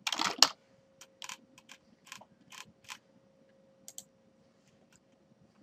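Computer keyboard typing: scattered key clicks, a few at a time with pauses between them, over a faint steady hum.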